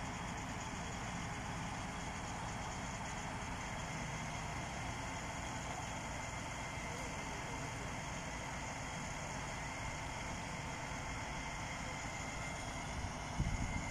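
Heavy truck engine running steadily at low revs, with an even hum.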